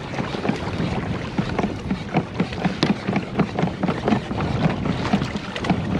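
Choppy sea water slapping and knocking irregularly against the hull of a plastic sit-on fishing kayak, two or three short slaps a second over a steady wash of water noise.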